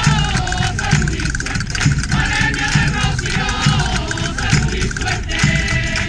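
A crowd of women singing a flamenco-style song together, accompanied by rhythmic hand clapping (palmas) at about two claps a second.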